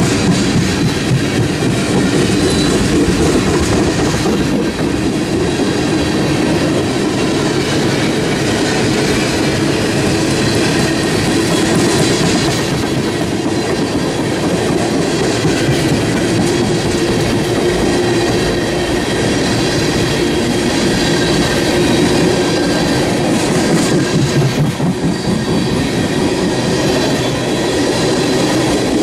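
Freight train of steel tank cars rolling past close by: wheels rumbling and clacking steadily over the rails.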